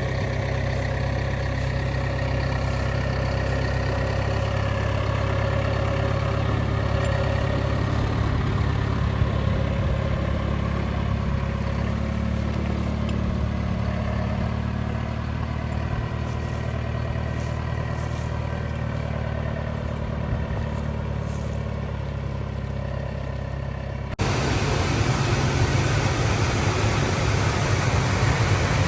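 John Deere 6110R tractor engine running steadily with a low hum. Near the end the sound jumps suddenly to a louder, hissier running.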